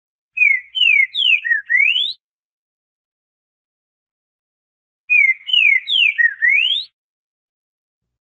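Green-winged saltator (trinca-ferro) singing its southern song type: two identical phrases about three seconds apart. Each phrase is a quick run of five loud slurred whistles, the first four falling and the last rising.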